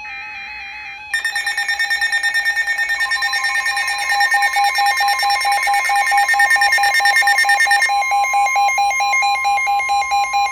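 Emergency Alert System tones from a Sage EAS ENDEC relaying a tornado warning: the end of a warbling data-header burst, then about a second in a loud attention signal of several steady pitches pulsing rapidly. A further steady tone joins about three seconds in, and the pattern changes near the end.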